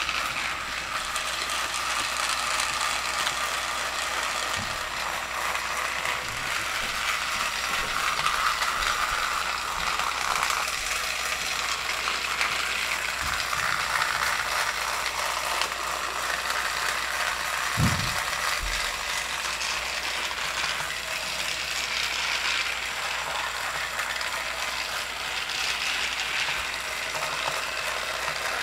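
Motorised Thomas & Friends TrackMaster toy locomotive running on plastic track while pulling a train of trucks: a steady whirring clatter of its small motor and gears. There is a single knock about 18 seconds in.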